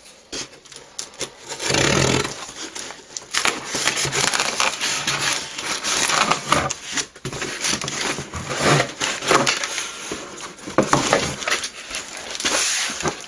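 A cardboard box being opened: a knife slitting the packing tape, then irregular scraping and rubbing of cardboard as the flaps are pulled open near the end.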